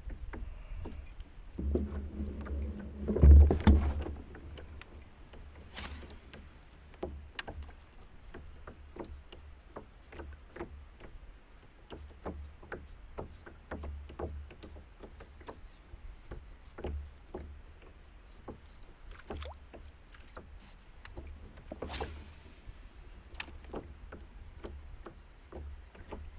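Small waves lapping and slapping irregularly against the plastic hull of an Old Town Predator PDL kayak drifting on a choppy lake, with one louder knock about three seconds in.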